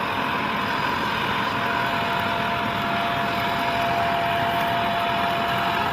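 Shark Rotator upright vacuum cleaner running steadily with its brushroll on, a constant high whine over the rush of air.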